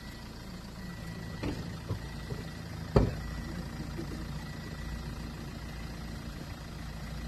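A steady engine hum, with one sharp knock about three seconds in and a couple of fainter knocks before it.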